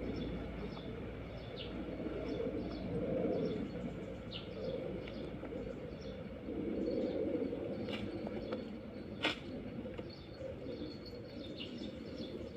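Small birds chirping in short, scattered calls over a steady low rumble, with one sharp click about nine seconds in.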